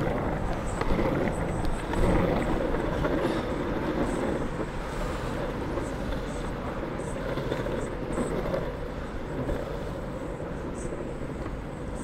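Longboard wheels rolling over asphalt: a steady, coarse rumble, with voices from a passing crowd in the first few seconds.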